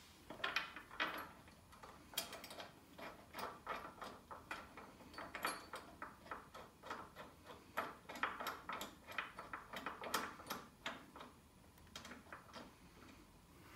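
Faint, irregular metal clicks and small scrapes as a wheel bolt is fitted by hand through the rim and hub. The clicks come several to the second and die away near the end.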